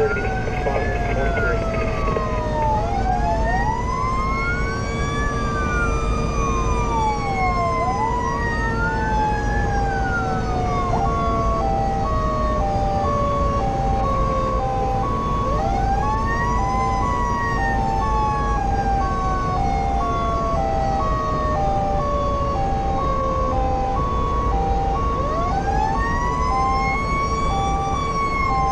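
Fire engine's Federal Q mechanical siren wound up three times, each time rising quickly to a high scream and then coasting slowly down, layered with an electronic siren wailing up and down, which changes to a pulsing two-tone pattern about a third of the way in. Steady engine and road rumble beneath, heard from inside the cab.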